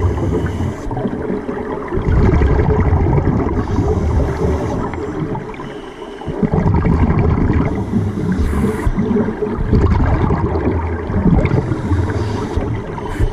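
Scuba diver's exhaled air bubbling out of the regulator close to the underwater camera: long, loud gurgling bursts of bubbles, with two short lulls between breaths.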